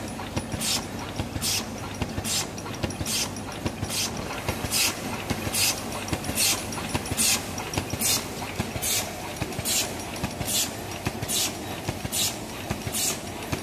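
Eraser packing machine running: a steady mechanical clatter with a short hiss that repeats evenly, a little more often than once a second.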